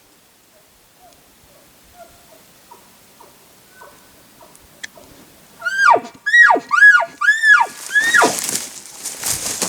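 Elk calling: after a few quiet seconds, about five short, high calls come in quick succession, each sliding steeply down in pitch. A burst of rustling noise follows near the end.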